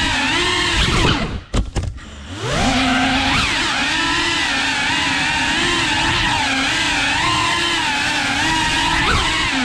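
Cinewhoop FPV drone's motors and ducted propellers whining, the pitch wavering with the throttle. About a second in, the whine drops away sharply, with a couple of quick knocks, then spools back up in a rising whine and runs on steadily.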